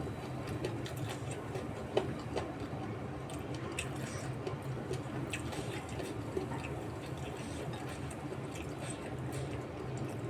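Eating sounds: chewing, with scattered small wet clicks and smacks, over a steady low hum.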